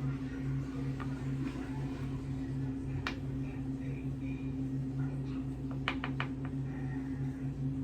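Steady low machine hum, with light clicks on top: one sharp click about three seconds in and a quick run of four clicks about six seconds in.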